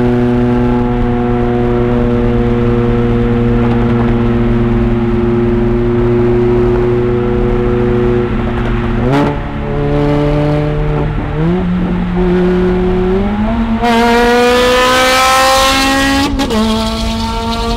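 Ferrari V8 engines running at steady highway revs. The revs step up twice, then climb in a loud, rising full-throttle acceleration that drops sharply at a gear change near the end.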